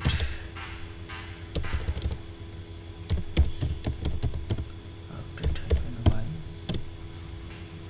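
Computer keyboard keystrokes: irregular clusters of key clicks as a short terminal command is typed, with a faint steady hum underneath.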